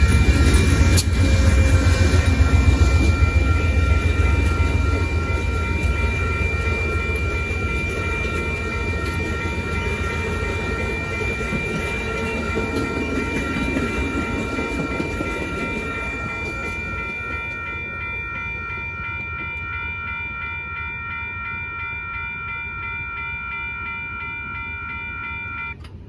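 Amtrak passenger train passing a grade crossing: the GE P40DC diesel locomotive rumbles loudly as it goes by, then the double-deck Superliner cars clatter over the rails and fade. The crossing bell rings steadily throughout and stops shortly before the end.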